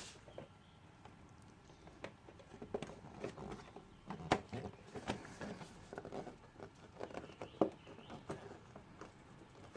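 Plastic scooter body panels and small screws being handled and fitted: irregular clicks, taps and rustling, with two sharper knocks about four and a half and seven and a half seconds in.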